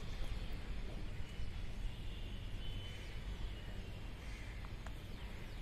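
Steady low outdoor background rumble with faint distant bird calls, one about four seconds in.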